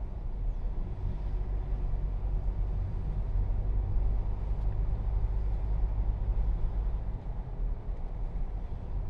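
A car driving: a steady low road-and-engine rumble that cuts off abruptly at the end.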